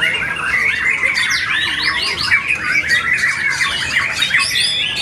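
Several white-rumped shamas (murai batu) singing at once: a loud, dense, unbroken mix of fast, varied whistles, trills and chattering phrases.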